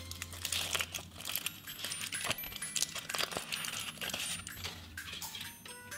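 Foil wrapper crinkling and crackling in many quick, irregular bursts as it is peeled off a chocolate surprise egg.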